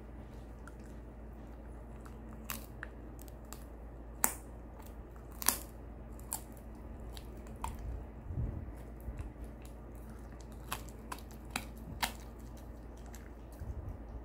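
Shiba Inu biting and chewing a dry chew treat held out by hand. Its teeth make irregular sharp crunches and clicks, the loudest two about four and five and a half seconds in.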